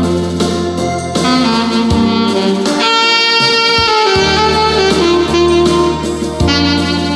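Alto saxophone playing the melody in long held notes over a backing track with a steady bass line.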